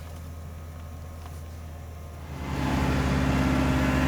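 A machine engine idling low, then rising to a louder, higher-revving run about two and a half seconds in and holding steady.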